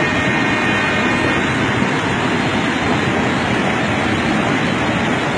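Steady, loud rushing roar of a huayco, a torrent of mud and water carrying debris, with no distinct events.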